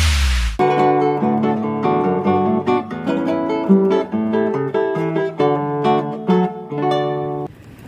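Background music: solo classical guitar playing a plucked melody over bass notes, cut off suddenly near the end.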